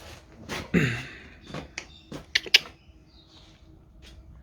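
A handful of sharp metallic knocks and clicks of engine parts and tools being handled during an engine teardown, clustered in the first half and loudest around two and a half seconds in, then quieter.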